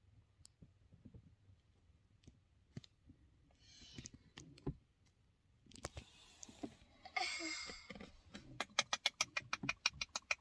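Small clicks and taps of buttons and switches being pressed by a child's hand. There are a couple of short rustles midway, then a quick run of clicks, about eight a second, near the end.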